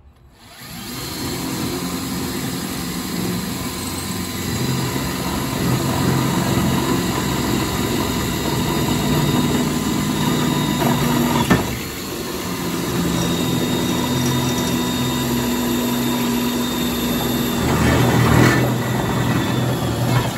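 Hand-held electric drill boring a bolt hole through aluminum, its motor running under load with the pitch stepping up and down. It starts about half a second in, with a sharp click and a short dip about halfway through before it runs on.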